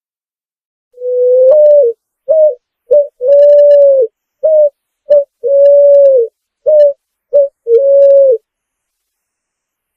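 Picazuro pigeon (pomba asa branca) singing its low cooing song: one long opening coo, then three rounds of two short coos followed by a long held coo.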